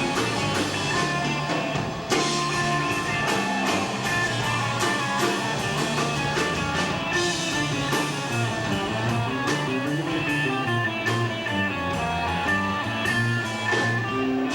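Live rock band playing an instrumental passage: guitar over bass and a steady drum-kit beat.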